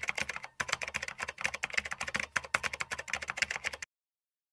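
Typing sound effect: a rapid run of keyboard key clicks that stops abruptly near the end.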